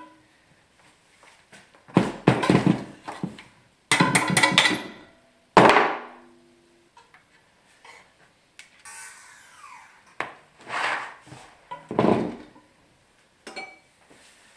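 Metal knocks and clanks from a fat bike's hub being worked on by hand, spaced out over several seconds. One sharp strike about five and a half seconds in rings on briefly.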